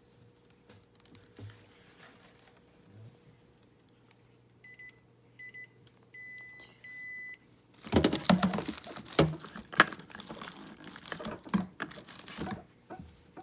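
A refrigerator's electronic beeper sounds four beeps at one pitch, two short then two longer, over a faint steady hum. About eight seconds in, several seconds of loud clattering and knocks follow.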